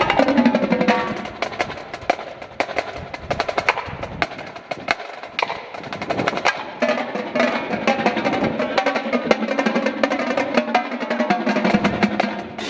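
Indoor drumline playing: rapid snare drum strokes and rolls over sustained pitched percussion notes. Softer for a few seconds, then fuller again about seven seconds in.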